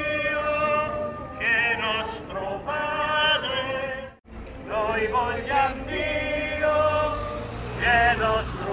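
Pilgrims singing a hymn to the Virgin Mary together, with long held notes that step up and down. The singing breaks off for a moment a little past the middle and then goes on.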